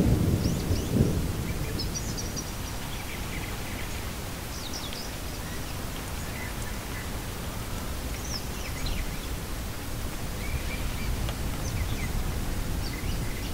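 Steady rain with a low thunder rumble dying away in the first second, and scattered faint high chirps over the rain.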